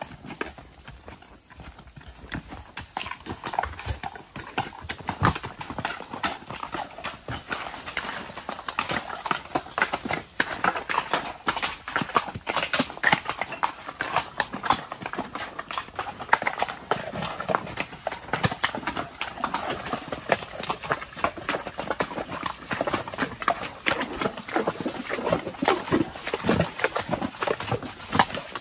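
A horse's hooves clopping and clattering unevenly on loose rocks and dirt as it walks down a stony trail.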